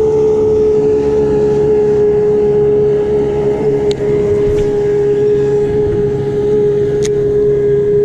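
Boat's outboard motor running steadily at speed, a constant unbroken drone.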